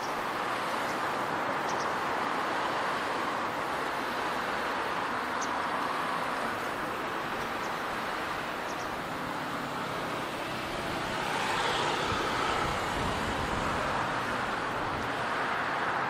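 Steady hum of distant road traffic, swelling slightly about two-thirds of the way through.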